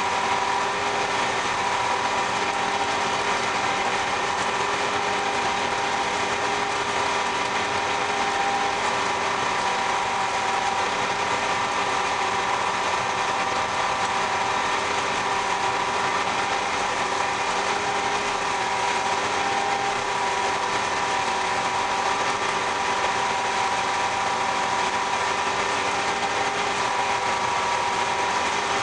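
John Deere 3300 combine running steadily, with an even engine drone and a high whine over it.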